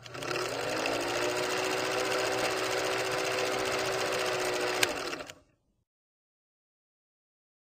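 Film projector sound effect: a fast, even mechanical clatter over a motor hum that rises in pitch as it starts and then holds steady, with one sharp click near the end before it stops abruptly.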